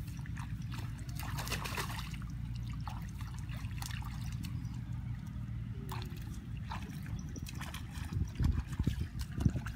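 Shallow muddy water splashing and trickling as hands and bare feet work through it, with scattered small splashes over a steady low rumble and a few louder, heavier splashes near the end.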